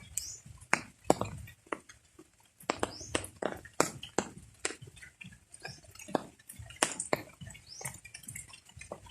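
Rainwater dripping: irregular drops landing with sharp taps, several a second.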